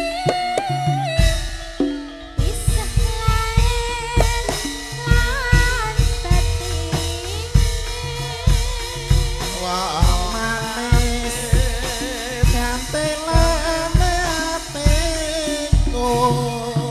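Live tayub music played loud through a sound system: a woman singing into a microphone in a wavering Javanese melody, over a band with a steady, regular beat of drum strokes.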